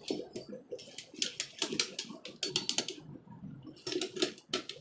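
Metallic clicking and clacking from an opened five-speed motorcycle gearbox as its shift mechanism and gear wheels are shifted back down to neutral. The clicks come in quick clusters, a run through the middle and another near the end.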